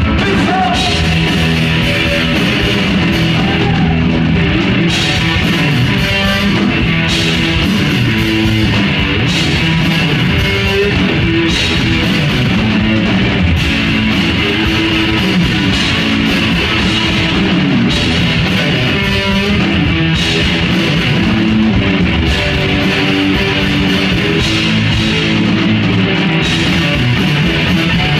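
Live rock music from a two-piece band: a semi-hollow electric guitar and a drum kit playing loudly, with cymbal crashes recurring every couple of seconds.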